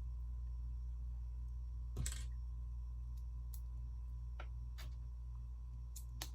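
Scattered light clicks of plastic Lego pieces being handled and pressed together, the loudest a short knock about two seconds in, over a steady low hum.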